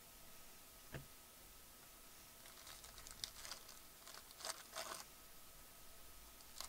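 Foil wrapper of a baseball-card pack being torn open and crinkled by gloved hands, faint, in a cluster of rustles over a couple of seconds. There is a light knock about a second in.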